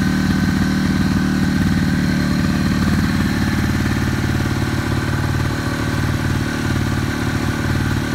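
1988 Polaris Star snowmobile's 244 cc single-cylinder two-stroke engine idling steadily.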